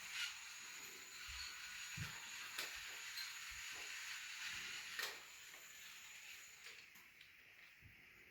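Small battery-powered toy drill running with a faint steady whir while driving screws into a plastic take-apart dinosaur, stopping about five seconds in, with a few light plastic clicks.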